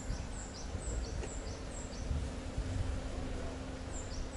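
A bird calling a series of short, high, falling chirps, about three a second, that stop about two seconds in and start again near the end, over low outdoor rumble.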